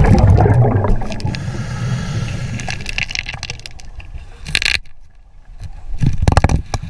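Underwater sound of a scuba diver breathing through his regulator: a low rumble fading early on, a hiss, then loud gurgling bubble bursts about four and a half and six seconds in.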